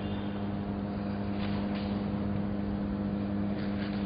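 Arc welding machine humming steadily, a low electrical drone over an even hiss.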